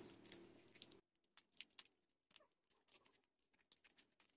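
Near silence with a few faint clicks in the first two seconds: small scissors snipping the yellow insulating tape wrapped around a UPS transformer's coil.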